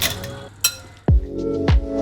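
Background music with a steady beat; it briefly drops out, with one short sharp hit, and comes back in about a second in.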